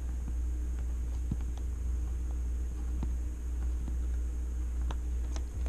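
A steady low hum, with faint, irregular light ticks of a pencil tapping dots onto tracing paper laid over paper.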